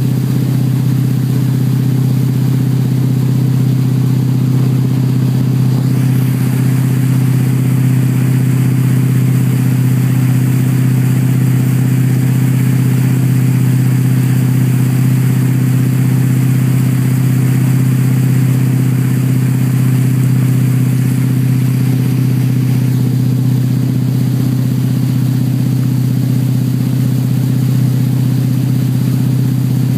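Towboat engine running at a steady low towing speed of about 10–11 mph, an even, deep hum that does not change, with a steady hiss above it that swells a little for a stretch in the middle.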